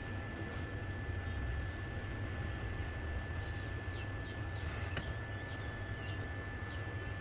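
Hot air rework station blowing steadily with a thin, steady whine while it heats the connector on a phone motherboard. Faint bird chirps sound in the background.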